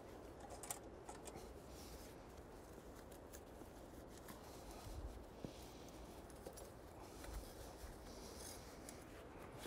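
Faint rubbing and light ticks of a rope being handled and tied around a transformer in a round turn with three half hitches.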